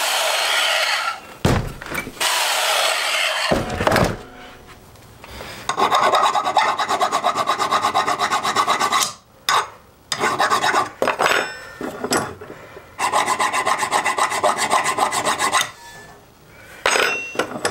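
Hand file rasping on a steel bar clamped in a bench vise, in long runs of quick, even strokes with short pauses, to flatten the bar's rough hand-sawn face.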